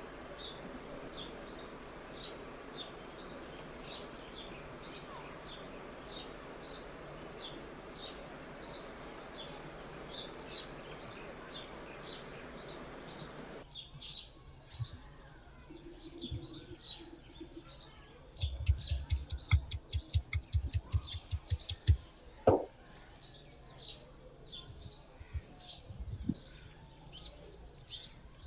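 A bird chirping over and over, about one and a half short high chirps a second. About two-thirds of the way through comes a fast run of loud, sharp taps lasting a few seconds, then a single click.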